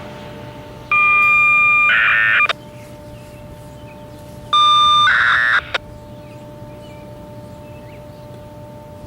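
Two loud bursts of FSK radio data that activate an outdoor warning siren, the first about a second in and the second about four and a half seconds in. Each burst is a steady high tone followed by a short, fast warbling data stream, ending in a click. The bursts are the signal that the siren is about to start.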